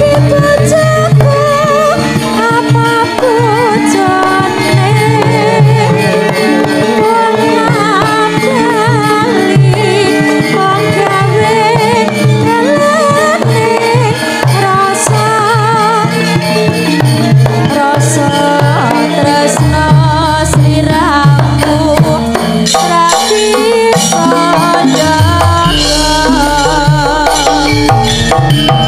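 Female sinden singing with a wavering, ornamented voice over Javanese gamelan accompaniment, with hand-drum strokes and sustained low tones, heard through a PA. Her voice drops out near the end while the ensemble carries on.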